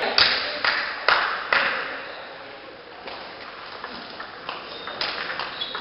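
Table tennis rally: the ball clicking sharply off rackets and table, a quick run of hits about two a second in the first second and a half, then a quieter gap and a few more hits near the end.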